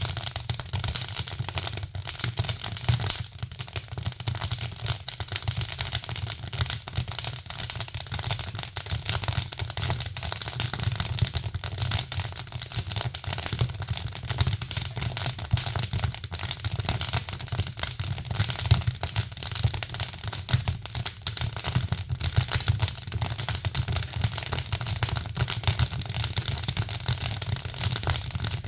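Fire crackling: a dense, irregular stream of small pops and snaps over a hiss, with a low steady rumble underneath.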